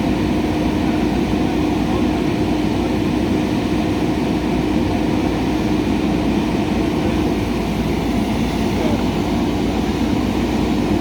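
JCB 3DX backhoe loader's diesel engine running at a steady speed.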